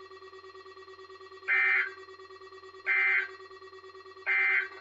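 Weather radio receiver sounding the Emergency Alert System (SAME) end-of-message code, marking the close of the Required Weekly Test: three short, shrill digital data bursts about 1.4 seconds apart, over a faint steady hum from the radio.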